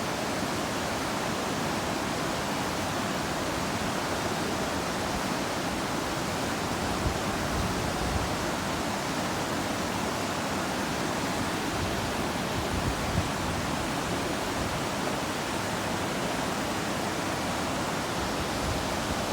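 Waterfall: a steady, even rush of falling water, with a few brief slightly louder moments.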